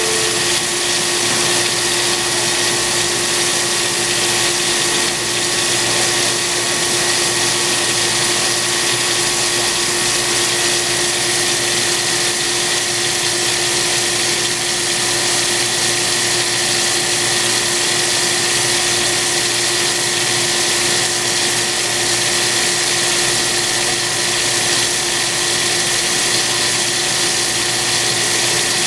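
CNC cylindrical grinder straight-grinding a long steel shaft under a flood of coolant: a steady, even machine noise with the hiss of the coolant spray, a constant hum and a fainter higher whine.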